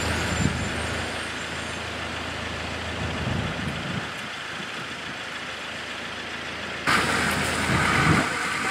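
A motor vehicle's engine running steadily, heard as a constant low hum with a few low thumps. About seven seconds in, a louder, hissier noise sets in abruptly.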